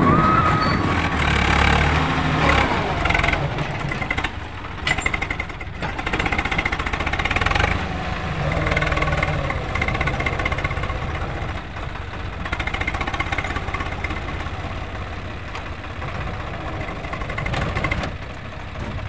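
Swaraj tractor diesel engines running hard under load, pulling a loaded earth scraper through sand, the engine note swelling and easing.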